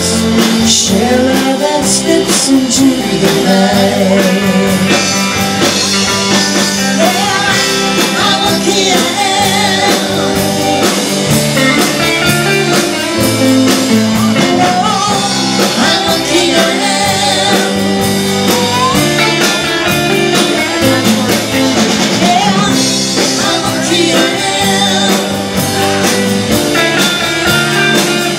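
Live blues-rock band playing: two electric guitars over a drum kit, with bending guitar or vocal lines.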